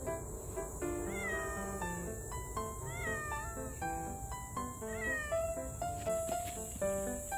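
A cat meowing about three times, each meow rising and then falling in pitch, over background music.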